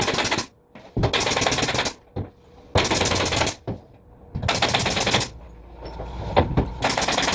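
A power fastening tool run in five short bursts of rapid mechanical hammering, each under a second long, with short gaps between them: fasteners being driven in quick succession.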